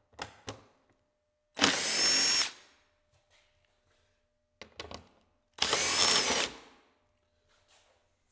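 Dremel rotary tool run in two short bursts of about a second each, each a loud high-pitched whine, with a few clicks and knocks of handling just before each burst.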